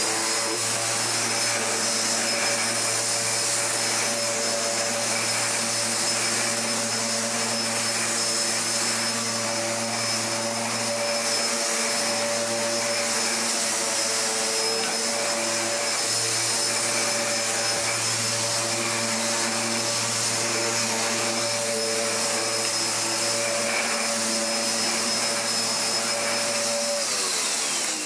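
Hoover Dustmanager bagless upright vacuum cleaner running steadily with its brush roll on a rug: a constant whine with several steady tones. Near the end the pitch slides down as the motor winds down. The motor and brush roll sound healthy.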